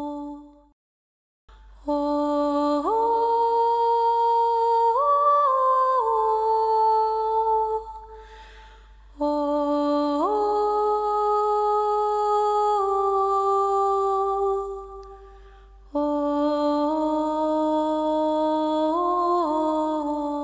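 Slow soundtrack music: a hummed melody of long held notes, in three phrases, each stepping up in pitch and back down before fading out.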